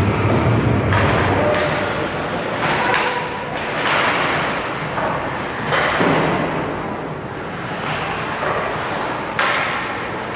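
Ice hockey play in a rink: several sharp knocks and thuds spread through, from puck, sticks and players hitting the boards and glass, over a steady din of skates and play.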